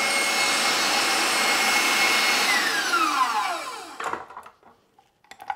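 KitchenAid stand mixer whipping meringue at high speed, a steady motor whine with the wire whisk in the bowl. About two and a half seconds in it is switched off and the whine falls in pitch as it winds down, stopping at about four seconds; a few light clicks follow.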